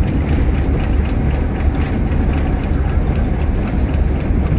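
Steady low rumble of an intercity bus's engine and tyres, heard from inside the moving bus. One of its tyres is peeling, which the passengers heard as a dragging sound.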